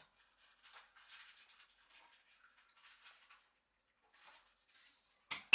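Faint, light scratching and rustling noises come and go, with a sharper clatter near the end.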